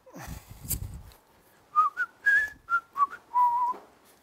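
A man whistling a few short, quick notes, ending on one longer held note. A second of bumping and rustling comes before it.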